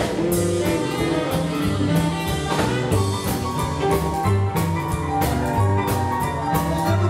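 Rockabilly band playing live: saxophone, hollow-body electric guitar, upright double bass and drums, with a bass line stepping from note to note under a regular drum beat.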